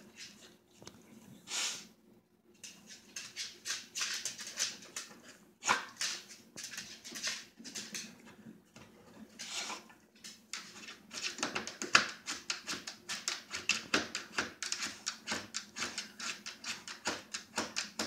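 A corgi sniffing hard with its nose pushed into the gap under a refrigerator: quick runs of short snuffling sniffs, several a second, with a few longer, louder blows of breath along the way.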